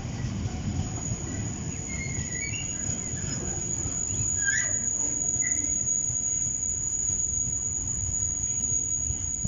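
Train running through with a low, continuous rumble, and a few short high squeals from the wheels on the rails a few seconds in.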